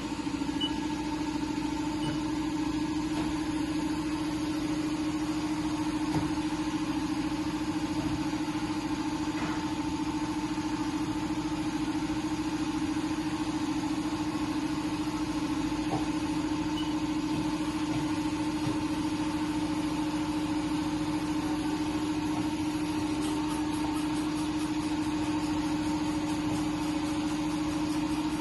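2012 Haas VF-5/50 CNC vertical machining center running under power: an even, steady machine hum with one strong steady tone and fainter higher tones, unchanging throughout.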